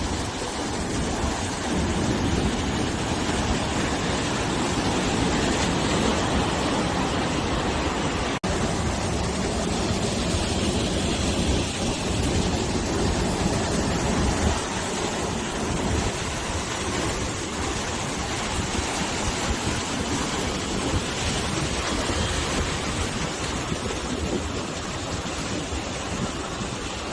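Sea waves washing onto the shore with wind blowing over the microphone, a continuous rushing surf that swells and eases. A momentary drop-out about a third of the way in.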